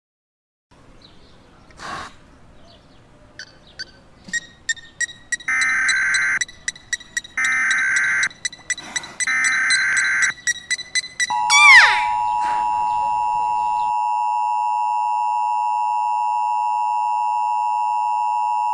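Beluga whale clicks and short whistles, with three one-second screeching data bursts of an Emergency Alert System SAME header about a second apart near the middle. Then comes a loud falling whistle, and the steady, buzzing two-tone EAS attention signal starts and holds for the last seven seconds.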